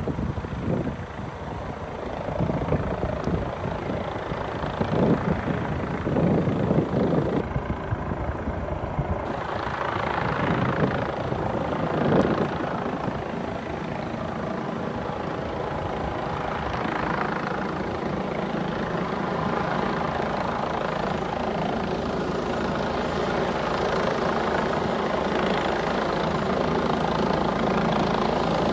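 Medical helicopter's rotor and engine running, the sound slowly growing louder through the stretch.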